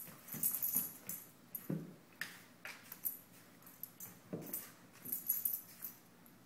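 A Labradoodle's collar tags jingle in irregular bursts as it moves about on a hardwood floor. Its claws click and its paws thump on the wood, with a few duller thumps about 2 and 4 seconds in. The sound dies away just before the end.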